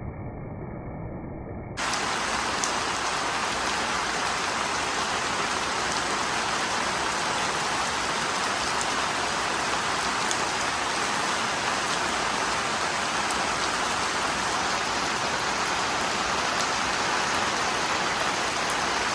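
Heavy rain falling, a loud steady hiss that starts abruptly about two seconds in after a short stretch of duller, muffled noise.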